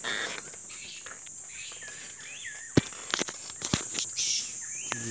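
Steady high buzz of insects, with a few short chirping calls that rise and fall in pitch. Several sharp clicks come through, the loudest a little under three seconds in.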